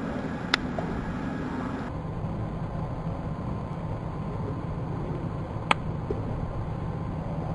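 Steady low rumbling background noise with two sharp clicks, one about half a second in and one near the end.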